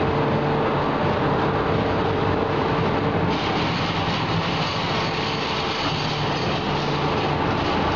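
Machinery of a wall bolt making line running, a loud, steady mechanical clatter with a low hum. A steady whine in it stops about three seconds in.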